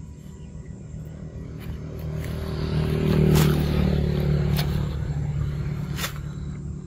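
A motorcycle passing by on the road, its engine growing louder to a peak a little after three seconds in and then fading away. A few sharp clicks sound over it.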